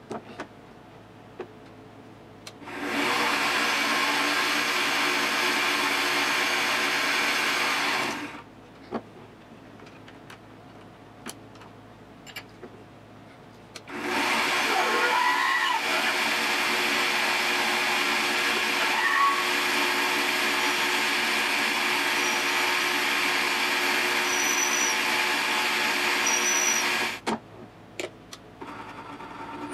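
Mini bench lathe running twice: once for about five seconds starting a few seconds in, then again from about halfway until shortly before the end. A twist drill in the tailstock chuck feeds into a spinning brass rod, with a little squealing from the cut early in the second run. Between the runs there are light clicks from handling the machine.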